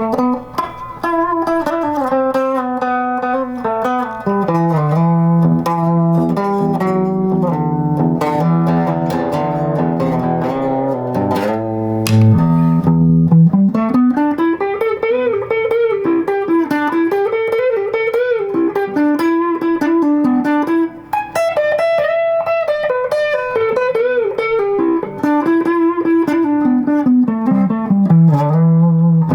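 Les Paul-style electric guitar built from a Solo LP-style DIY kit, played solo: held notes and chords at first, then from about halfway a lead line of wide string bends that rise and fall again and again.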